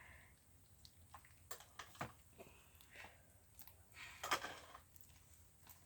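Faint scattered sticky clicks and squishes of glue slime being mixed with activator, the loudest about four seconds in.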